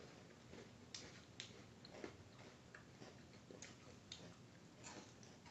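Faint crunching as someone chews a crisp snack: a handful of soft, irregular clicks over near silence.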